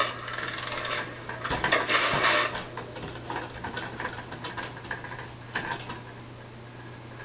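Hands, bare skin and body knocking, rubbing and squeaking against a steel dance pole as the dancer climbs and inverts. There is a cluster of contact noise about two seconds in and single sharp clicks near five and six seconds, then it goes quiet over a steady low hum.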